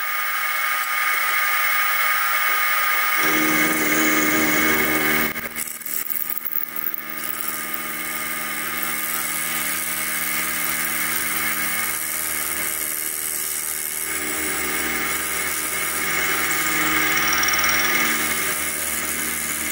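Sieg SX2P mini-mill running a 6 mm four-flute end mill, cutting out the inside corners of a part: a steady motor whine with cutting noise. A deeper hum joins about three seconds in.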